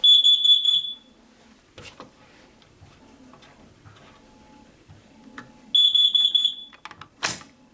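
Smoke alarm horn sounding in two bursts of rapid, high-pitched beeping, each about a second long and about five seconds apart, starting again at the very end. A sharp knock comes just before the last burst.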